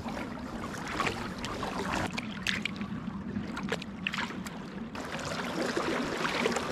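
Water splashing and sloshing, with many small sharp splashes over a steady low hum.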